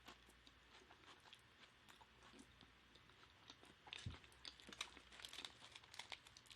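Faint close-miked chewing with small wet mouth clicks, turning into louder crunchy bites from about four seconds in.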